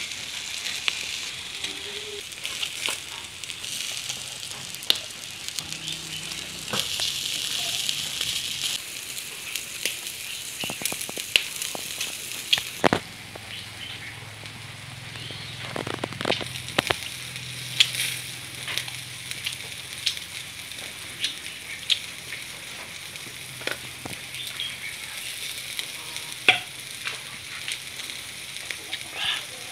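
Meat sizzling on a charcoal grill: a steady hiss with scattered sharp pops and crackles. The hiss is louder in the first half and quieter after about halfway.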